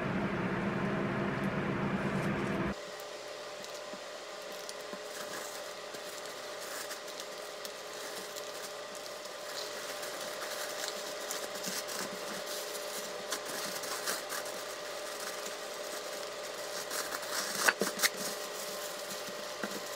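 Parchment paper and plastic wrap crinkling as hands roll and wrap a burrito, with a few sharper crinkles near the end. Under it runs a steady electrical hum that drops in level about three seconds in.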